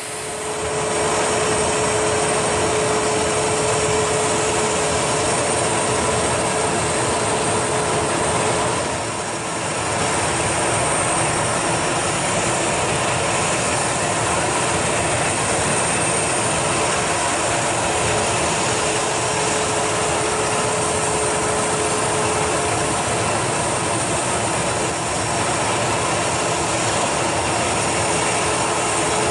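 Steady jet turbine noise from a Boeing 737-800, a broad rushing sound with a faint high whine, dipping briefly about nine seconds in.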